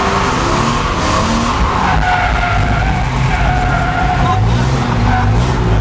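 Cars drifting, heard from inside a car's cabin: tyres squealing in long, wavering tones over engines running under throttle, loud and unbroken throughout.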